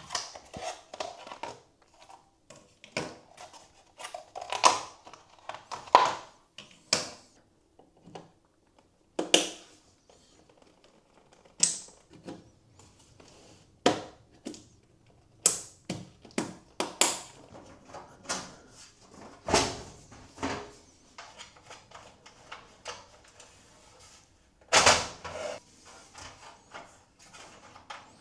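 Irregular clicks, taps and knocks of computer hardware being handled and fitted together, with short pauses between and a few louder knocks.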